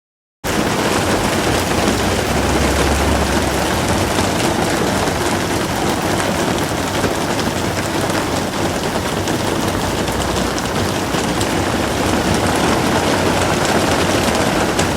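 Torrential rain pouring down, a dense steady hiss that starts abruptly about half a second in.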